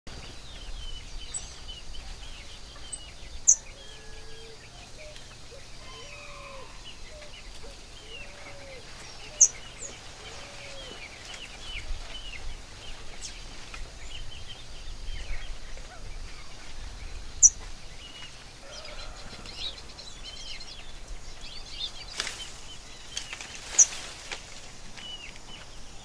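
Outdoor birdsong: many small chirps all through, with lower whistled notes in the first half. Four short, sharp, high calls spaced several seconds apart stand out as the loudest sounds. A brief rush of noise comes near the end.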